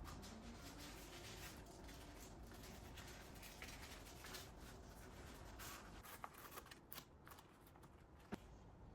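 Faint rustling and crinkling of bamboo leaves being folded and handled while wrapping zongzi by hand, with a few sharp clicks in the second half.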